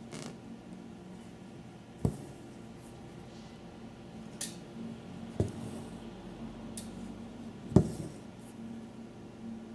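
A needle working satin stitch through fabric stretched taut in an embroidery hoop: three sharp taps as the needle goes through the drum-tight cloth, the last the loudest, between short high rasps of white stranded cotton thread being drawn through. A faint steady hum underneath.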